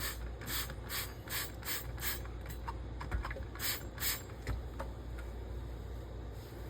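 Straight razor honed on a slurried whetstone while setting the bevel: a quick run of scraping strokes, about two or three a second, then a short pause and a few more strokes around the middle.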